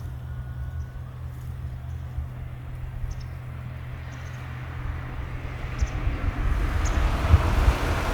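Motor vehicle noise: a steady low engine hum, with a rushing sound that builds and grows louder over the second half.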